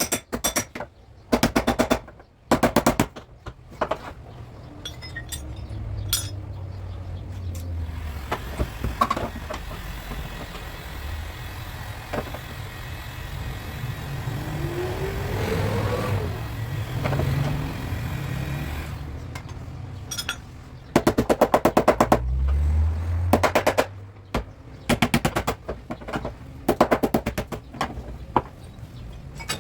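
Rapid bursts of hammering on car body sheet metal, the blows coming too fast to count, stopping and starting. Between the bursts there is a stretch of steadier workshop noise with a low rumble.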